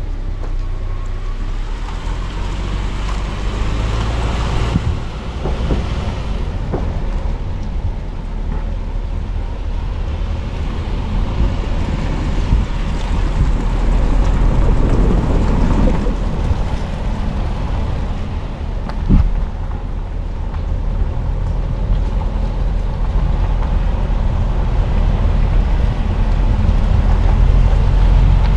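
Car interior driving noise: a steady low rumble of engine and tyres on the road. It swells a little twice, and there is one sharp knock about two-thirds of the way through.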